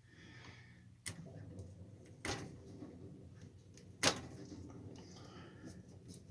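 Light handling noises from working on a welding gun's cable and trigger wires: a few sharp clicks or taps, the loudest about four seconds in, with faint rustling between, over a low steady hum.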